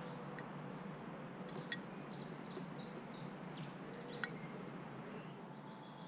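A small songbird twittering in the background, a run of quick high chirps from about one and a half to four seconds in, over a steady low outdoor hum. A few light taps, from a crow pecking food out of a plastic tray.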